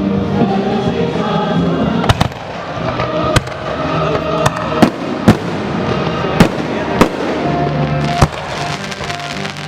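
Aerial fireworks exploding as a string of sharp bangs, about eight of them beginning about two seconds in, over music with held tones.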